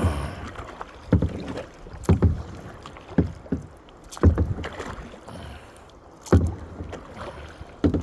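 Kayak paddle strokes dipping and splashing in the river, roughly one stroke a second, over steady water noise as the kayak is paddled out of a strong current.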